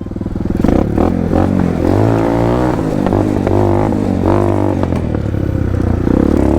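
Motorstar MSX 150SR motorcycle engine, breathing through a Keihin 28mm flat-slide racing carburettor, revving up and falling back several times as the bike is ridden.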